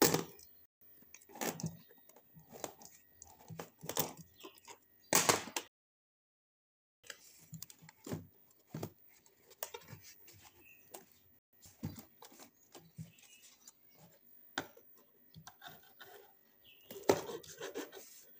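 Irregular handling noises from unboxing a laser pointer: packaging rustling and tearing, with scattered clicks and taps. The sound cuts out completely for about a second a little under six seconds in.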